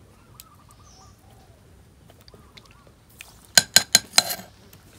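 About five quick, ringing clinks of a utensil against dishware in the second half. Faint bird chirps come before them.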